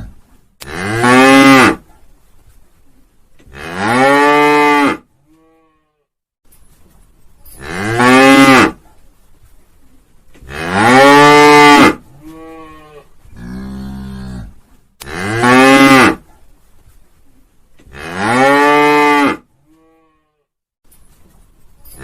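A cow mooing over and over: about six loud moos, each a second or two long, rising and then falling in pitch, with quieter moos between them.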